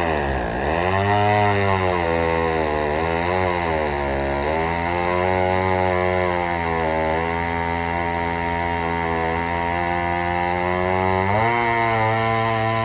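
Vintage gasoline chainsaw engine running, its speed dipping and recovering several times in the first few seconds, then holding steady, and stepping up abruptly near the end.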